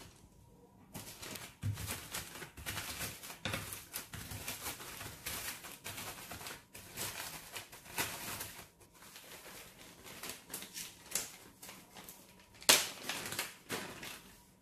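Biscuits crushed inside a plastic zip-lock bag with a rolling pin: irregular crunching of the biscuits and crinkling of the bag, with one louder crackle near the end.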